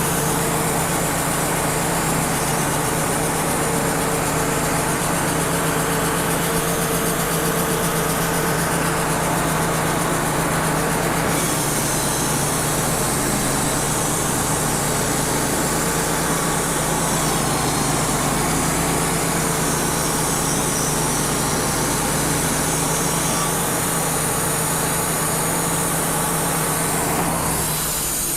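Wood-Mizer LT35 portable band sawmill running steadily under load, its band blade sawing through a soft maple log, with a steady engine hum under the hiss of the cut. The hiss brightens about eleven seconds in and eases just before the end.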